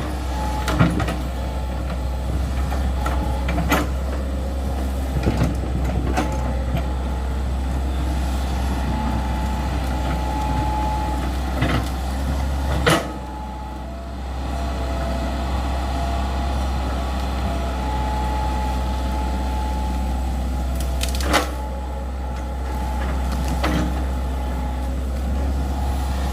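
Excavator's diesel engine running steadily while trenching, with a high whine that comes and goes and several sharp knocks along the way.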